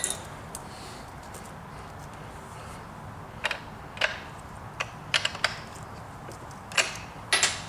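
A few scattered light metallic clicks and clinks, some in quick pairs, as the chainsaw's chain, bar and tools are handled while the chain tension is checked.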